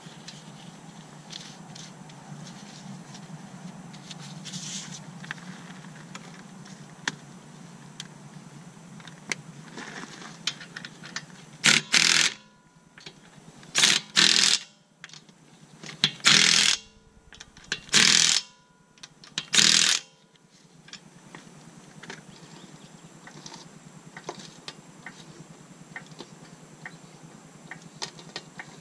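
Faint clicks and scrapes of lug nuts being threaded onto a car wheel stud by hand, then a cordless impact wrench run in five short bursts about two seconds apart, spinning on and snugging the wheel's five lug nuts.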